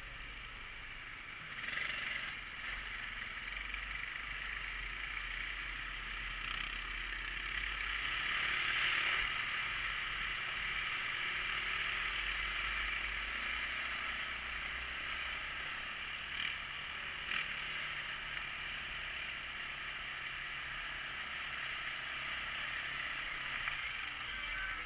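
Side-by-side UTV running under way on a dirt trail: a steady engine and drivetrain drone with a hiss of wind and trail noise, swelling loudest about nine seconds in, with a few brief clatters.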